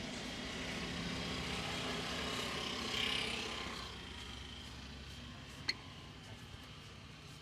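Roadside traffic going by, with one vehicle swelling and fading about three seconds in. A single sharp click comes a little later.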